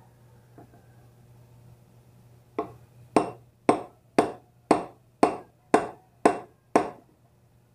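Hammer tapping a drift set on a DHQ bicycle hub to drive a new bearing in: nine sharp taps about two a second, the first one lighter.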